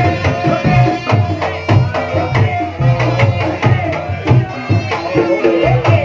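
Reog Ponorogo accompaniment music: hand drums beating a quick, driving rhythm under a wavering high melody line.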